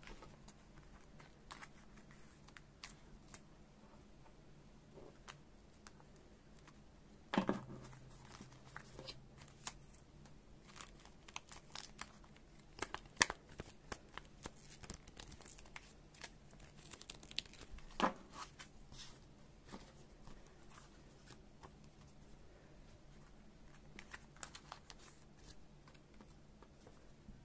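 Thin clear plastic card sleeves rustling and crinkling as trading cards are handled and slid into them, with scattered light clicks and taps. A stack of sleeves is riffled through to separate them. Louder knocks come about a quarter of the way in, near the middle and about two-thirds of the way through.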